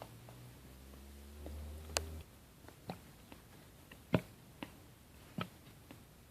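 A person hiccupping: a run of short, sharp hics spaced under a second apart, the loudest about four seconds in. A low hum stops about two seconds in.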